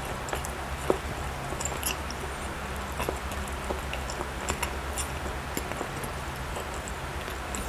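Close-miked chewing of soft cake or bread: small wet mouth clicks and smacks scattered throughout, over a steady low hum.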